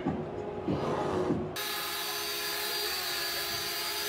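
Small quadcopter drone hovering, its propellers making a steady whine with a hiss, which cuts in suddenly about a second and a half in.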